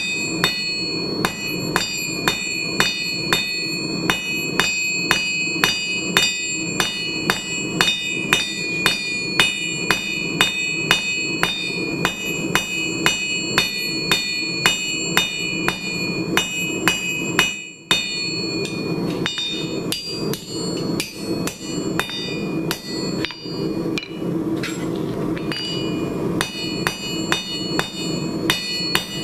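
A 2.5 lb straight peen hand hammer strikes a red-hot 3/8 in square steel bar on an anvil, drawing it out to a point. The blows are steady, about two a second, each with a bright ringing note from the anvil, over a steady low rush. After a brief break about 18 seconds in, the blows go on with less ring.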